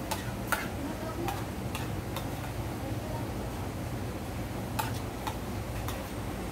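Spoon clinking and scraping against a plate as someone eats: sharp, irregular clicks, a quick cluster of about five, then three more after a short pause.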